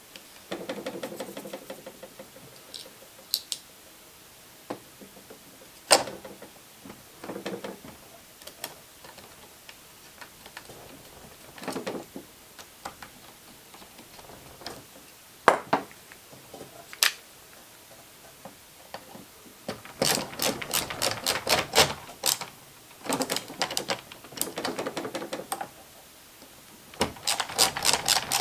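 A ratcheting screwdriver clicking in quick, evenly spaced runs, three bursts in the last third, as screws are worked on a Roomba. Before that come scattered single clicks and knocks of small plastic parts being handled.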